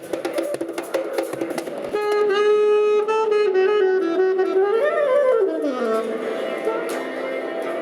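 Live subway busker music: quick plucked guitar-like notes for about two seconds, then a saxophone playing long held notes that bend up and then slide down in pitch near the end.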